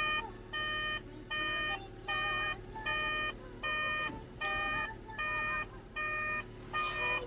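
Heavy machine's electronic warning alarm beeping steadily, about one and a half beeps a second, over the hum of a running engine.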